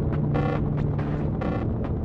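Industrial-style ambient drone: a steady low hum and throb, with short bright pitched pulses sounding a couple of times over it.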